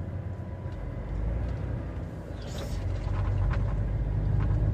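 Truck engine and road noise heard inside the cab while driving, a low steady drone that grows louder over the last couple of seconds, with a short hiss about two and a half seconds in.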